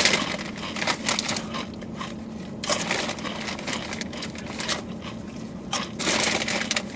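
Crunching of Takis rolled tortilla chips being chewed with the mouth full, a quick run of crackly crunches. A faint steady low hum runs underneath.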